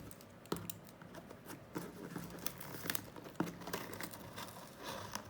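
A knife cutting open a package, with irregular small clicks and crinkling of the wrapping.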